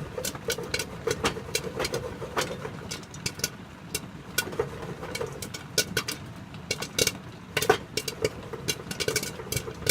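Popcorn kernels popping in a pot on the stove, sharp pops coming irregularly several times a second, over the steady hiss of heavy rain.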